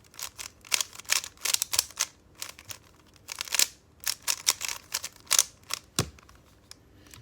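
3x3 speedcube being turned quickly by hand: rapid, irregular clacking of its layers snapping round, in clusters of clicks, with one sharper knock about six seconds in.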